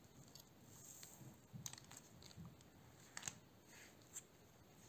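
Faint handling sounds of a plastic round cookie cutter being pressed into and lifted out of a soft sponge cake, with a few light clicks and taps and the rustle of disposable gloves; the sharpest click comes a little past the middle.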